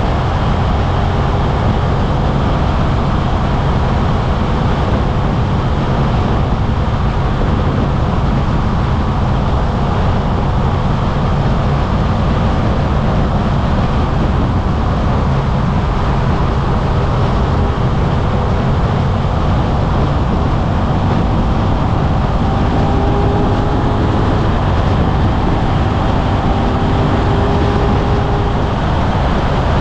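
Suzuki V-Strom 800RE's 776 cc parallel-twin engine running steadily as the bike rides along, heard from a cockpit-mounted action camera.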